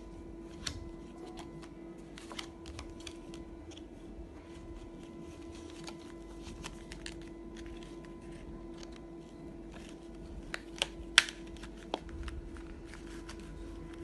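Hands handling a cardboard mask holder and a paper surgical mask: light rustling and small clicks of card being folded and tapped, with a few sharper clicks about eleven seconds in, over a steady hum.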